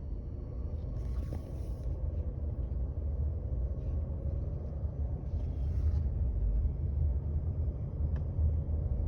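Mercedes-Benz C-Class (W205) pulling away from a stop: a steady low rumble with a faint thin whine, and two short hisses about a second in and midway. The owner posts this as an abnormal noise the car makes when moving off.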